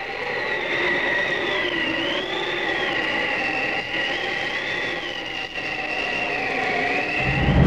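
Sustained drone of several held tones, the highest wavering slowly up and down, growing a little louder: the opening of a synthesized soundtrack.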